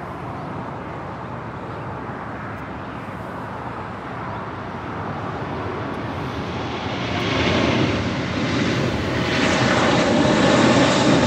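Airbus A380's four jet engines at takeoff power during the takeoff roll and lift-off, a steady rumble that grows steadily louder, with a faint whine rising out of it over the second half.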